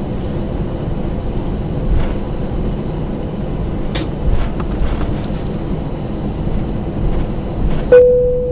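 Airbus A321 cabin noise while taxiing: a steady low rumble of the IAE V2500 engines at idle and the rolling aircraft, with a couple of short knocks. Near the end a single cabin chime sounds and fades, the signal for a crew announcement.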